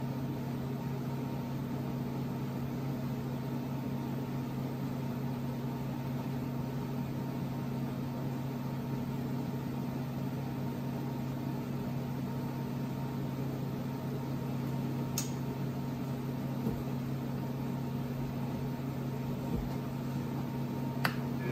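KC20VS bench mill's spindle motor running steadily with a low hum, the tool spinning without cutting. Two faint ticks, one past the middle and one near the end.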